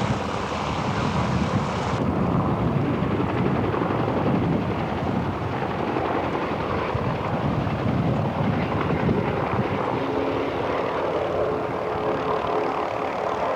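Aircraft engine running, a steady rough drone. A faint steady hum joins about ten seconds in.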